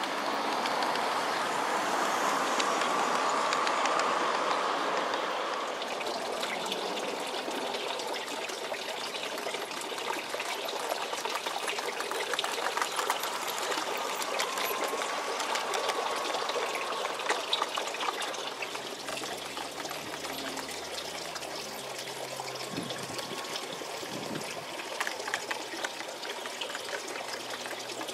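Steady rushing of water, with light clicking from a G-scale model train's wheels running over garden-railway track.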